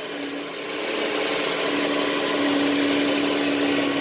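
2012 Dodge Journey engine idling steadily, freshly started on a newly installed starter, with a constant tone over the running noise.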